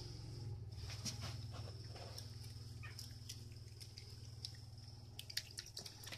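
Faint wet clicks of a cat licking and chewing raw fish, over a steady low hum. Near the end a quick run of sharper clicks comes as it noses into a plastic tub of wet fish.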